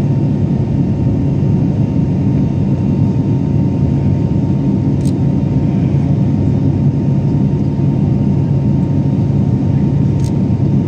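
Jet airliner cabin noise heard from a window seat while climbing out after takeoff: a steady low engine and airflow drone with a faint steady whine. Two brief ticks, one about halfway through and one near the end.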